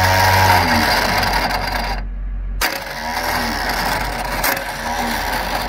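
Starter motor on an antique Lorain cable shovel spinning with a metallic whirr and rattle, in two goes with a short pause about two seconds in. Its Bendix drive is not kicking out to mesh with the flywheel ring gear, so the engine is not being turned over.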